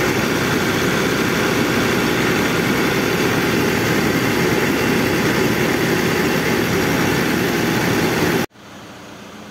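Excavator's diesel engine running steadily, heard close up in the open engine bay. The sound cuts off abruptly near the end, leaving a much quieter background.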